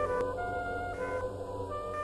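Instrumental soundtrack music: held notes stepping from one pitch to the next every half second or so.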